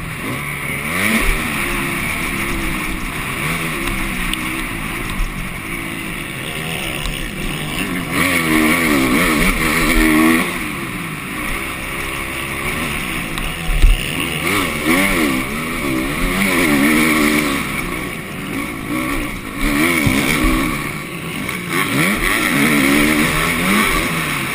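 Motocross bike engine, heard from its own onboard camera, revving up and falling back again and again as the rider accelerates and shifts along the track. A single sharp knock stands out about halfway through.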